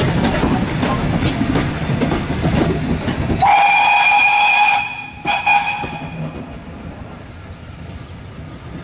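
GWR 14xx class 0-4-2 tank engine No. 1450 pulling away with its coaches, its running and the wheels on the rails loud and close. About three and a half seconds in it sounds its whistle, one blast of about a second and a half with a short second toot, then the train fades off.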